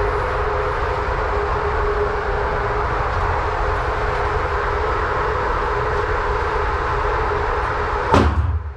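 Steady mechanical rumble with a faint hum, the background noise of an indoor shooting range's machinery, such as ventilation or the target carrier. About eight seconds in, a single sharp bang cuts through it.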